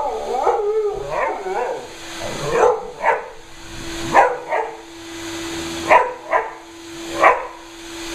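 A dog barking at a running vacuum cleaner. It makes a couple of seconds of wavering, drawn-out noises, then about seven short, sharp barks, over the steady hum of the vacuum from about three seconds in.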